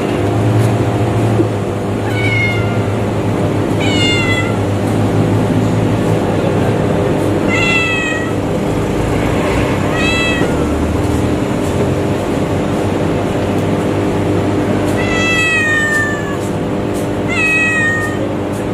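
A cat meowing repeatedly: about six high, slightly falling meows a few seconds apart, over a steady background hum.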